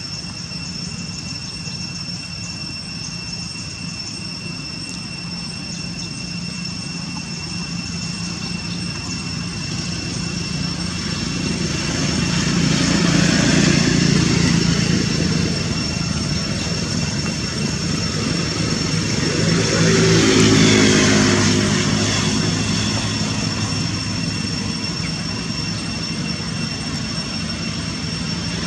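Engine drone that swells twice, about halfway through and again about two-thirds of the way through, its pitch falling as the second swell passes. A steady high whine runs underneath.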